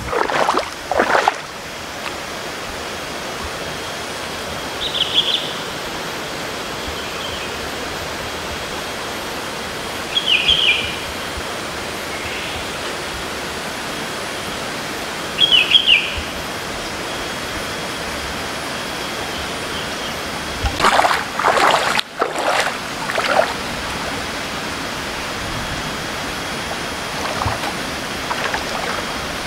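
Steady rush of flowing water, with a bird chirping three times about five seconds apart. A cluster of louder short noises comes about two-thirds of the way through.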